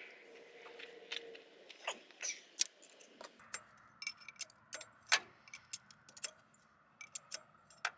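Hand wrench and ratchet working the turbo housing bolts: irregular sharp metallic clicks and clinks of the tool on the bolts and housing.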